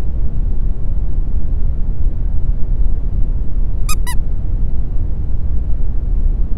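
A steady, loud low rumble, a cartoon space sound effect, with two short high squeaks close together about four seconds in.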